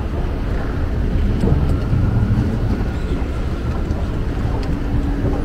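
Steady low rumble of a moving escalator and the large terminal hall around it, with a few faint clicks and a faint held hum near the end.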